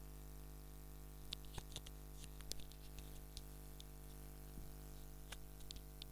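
A steady low electrical hum, with scattered short, sharp clicks, as of a computer mouse being clicked while the software is operated.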